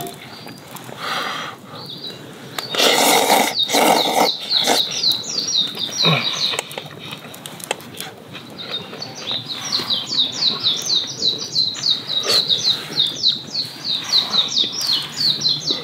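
Small songbirds singing in a chorus, quick runs of short falling chirps repeated over and over. About three seconds in, two loud slurps of noodles being sucked up.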